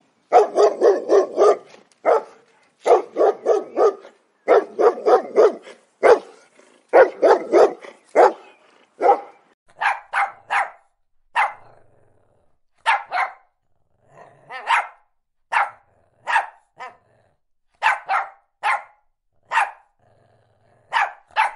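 A dog barking in rapid runs of four or five barks, then from about nine seconds in a Pomeranian's higher barks, one or two at a time, roughly a second apart.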